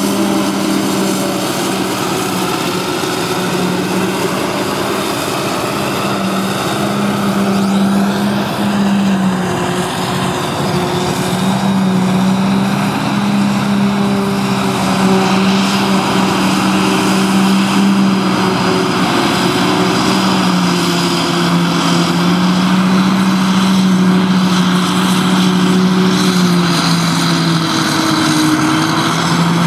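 Claas Jaguar forage harvester running under load, chopping grass and blowing it out of its spout into a trailer, with the tractor working alongside. A loud, steady drone with a strong hum that dips slightly in pitch a few times.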